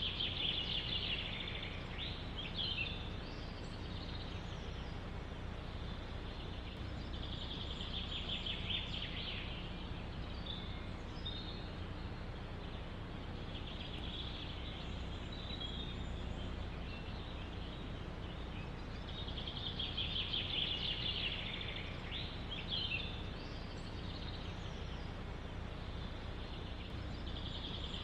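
A songbird singing a rapid high trill followed by a few short sweeping notes, repeated about every six seconds, over a steady low background of forest ambience.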